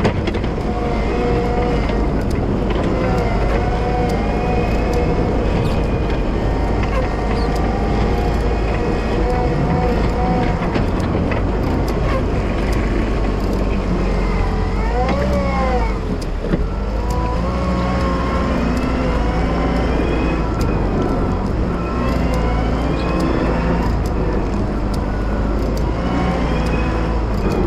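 Wheel loader's diesel engine running steadily under load while plowing snow, a low rumble with a whine on top that rises and falls in pitch as the revs change.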